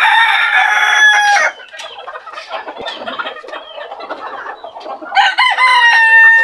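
Bantam roosters crowing twice: one crow right at the start, lasting about a second and a half, and another beginning about five seconds in, with hens clucking in between.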